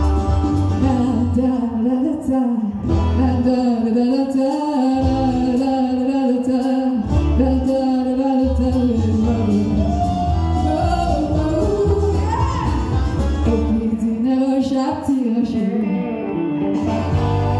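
A woman singing a country song live into a microphone, amplified through the stage speakers, over instrumental accompaniment; near the end the song settles on a long held chord.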